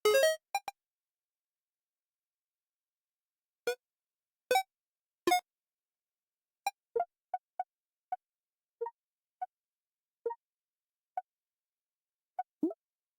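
A string of short synthetic user-interface sound effects played one after another with silence between: electronic blips, pings and clicks of the sort used for buttons, toggles and notifications, a few loud ones followed by a quicker run of softer, shorter tones.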